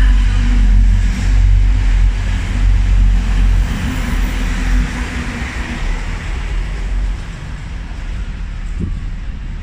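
Class 180 diesel multiple unit passing close by and pulling away, its diesel engines running with a deep rumble over the noise of wheels on rail. The rumble drops off about seven seconds in as the train moves off.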